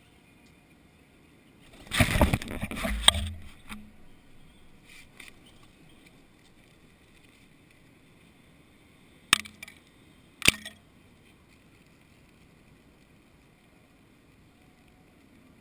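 Rock pigeons' wings flapping in a loud burst close to the microphone about two seconds in, lasting just over a second as birds take off. Later come two sharp taps about a second apart, with a low steady background between.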